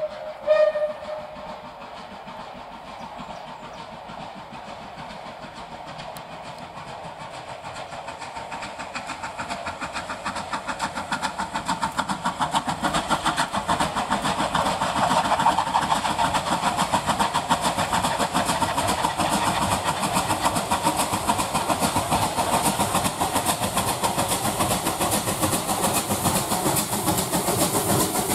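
A steam whistle's note cuts off just after the start. Then an unrebuilt Bulleid light Pacific steam locomotive approaches and passes close, its rapid exhaust beats growing steadily louder from about eight seconds in.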